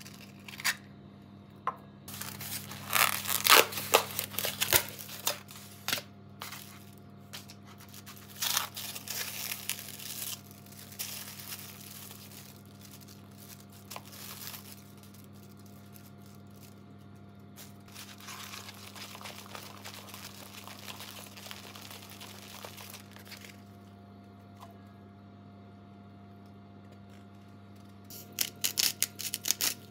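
Plastic packaging of a natto pack crinkling and tearing in irregular bursts, loudest a few seconds in. Near the end a hand grinder clicks rapidly.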